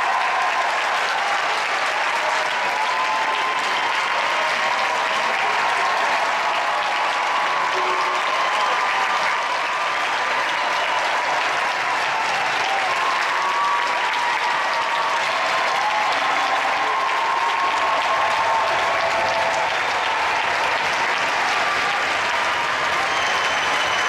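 A large crowd applauding steadily in a big reverberant church, a long sustained ovation that neither builds nor fades.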